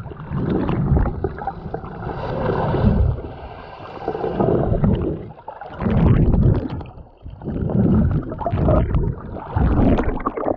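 Muffled water sloshing and gurgling over a waterproof action camera held just below the sea surface, coming in loud surges every second or two as the swimmer moves.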